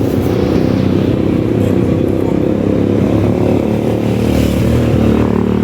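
A motor vehicle engine running steadily close by, a continuous low rumble.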